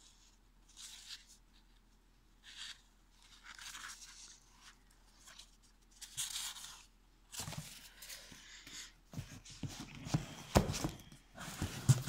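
Sheets of patterned scrapbooking paper being fanned and leafed through by hand: short papery swishes every second or so, then louder rustling and handling with a few knocks in the last few seconds.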